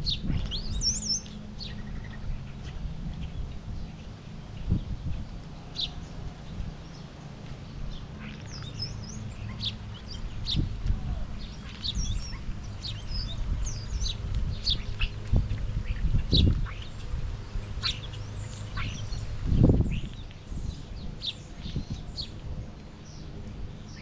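Small wild birds chirping in short, scattered calls at a backyard feeder, over a steady low hum. A few dull low thumps come through, the loudest near the end.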